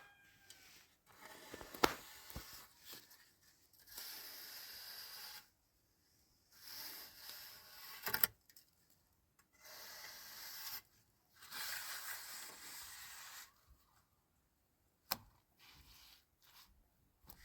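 A series of long rubbing or scraping strokes, each lasting a second or two with short gaps between them, and a few sharp knocks in between.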